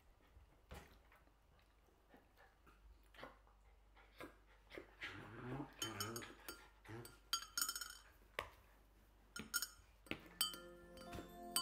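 Metal teaspoon stirring honey into a glass mug of tea, clinking sharply against the glass several times, after a few soft taps and clicks.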